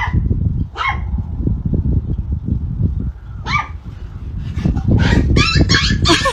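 A dog barking and yipping: a couple of short calls in the first second, then more calls coming quickly from about three and a half seconds in, over a low rumbling noise.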